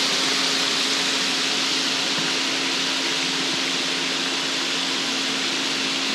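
Chicken wings deep-frying in hot oil: a steady sizzle, with a steady low hum underneath.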